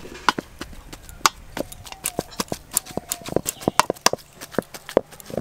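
Wooden dal masher pounding boiled potatoes in an aluminium bowl: an uneven run of sharp knocks and clacks, about four or five a second, as the wooden head strikes the potatoes and the metal bowl.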